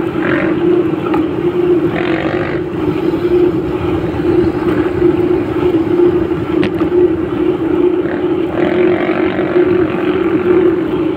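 Steady hum of a moving road vehicle, recorded from on board, over road noise, with two brief swells of other sound about two seconds and nine seconds in.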